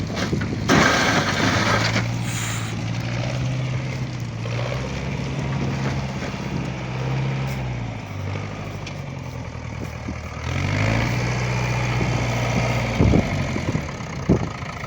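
Heavy work vehicle's engine running steadily. Its note dips and fades about eight seconds in, then picks back up a couple of seconds later, with a few sharp knocks near the end.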